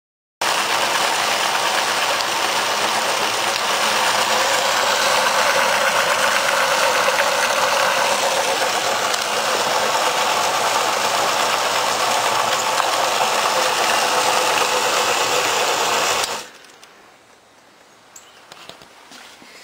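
Homemade ball mill running: a 24-volt DC motor belt-driving a 4 by 8 inch PVC jar on rollers at around 100 rpm, making a loud, steady mechanical noise. It starts abruptly about half a second in and stops suddenly near the end.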